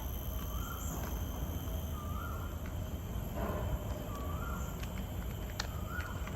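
A bird repeating a short whistled call that rises and then holds, four times about a second and a half apart, over a steady low rumble.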